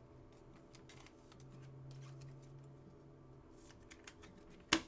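Faint clicks and rustles of a trading-card pack being opened and its cards handled, with one sharp click near the end.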